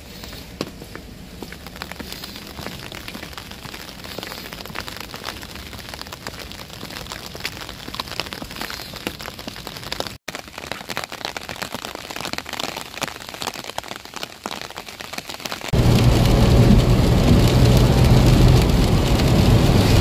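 Heavy rain pattering steadily on pavement. About three-quarters of the way through it gives way to a louder, steady car-interior hum with rain on the car.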